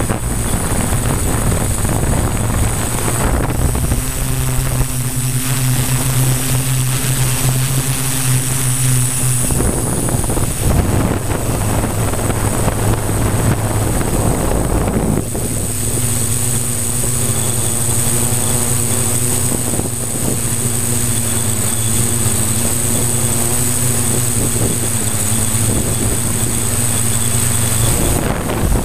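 A multirotor's electric motors and 15x5.5 propellers drone steadily, close to the onboard camera, with a high whine above the hum. The hum's pitch and strength shift a few times as the motors change speed.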